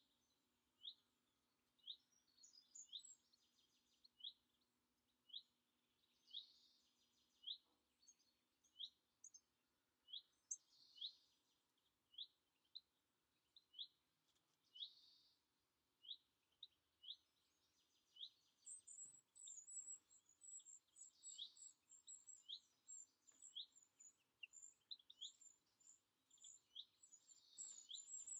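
Faint garden birdsong. One bird repeats a short high chirp about once a second, with bits of song from other birds in between. About two-thirds of the way through, a very high, rapid twittering joins in.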